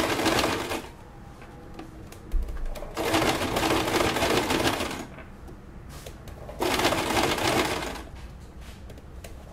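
Domestic electric sewing machine stitching slowly in short runs: it stops soon after the start, runs again for about two seconds from about three seconds in, then for just over a second near the end, with pauses between.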